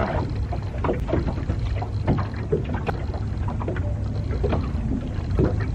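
Light, irregular clicks and taps of fishing tackle and line being handled, over a steady low rumble.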